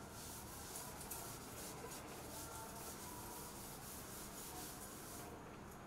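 A cloth duster wiping a chalkboard: a faint, steady rubbing hiss that dies away about five seconds in.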